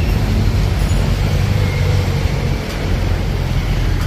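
Steady motor-vehicle noise: a continuous low engine rumble under a dense roar, as of road traffic.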